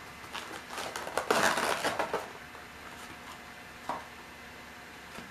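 Packaging being handled as a diecast model airliner is pulled from its box: a couple of seconds of crackling, crinkling rustle with small clicks, then one light tap about four seconds in.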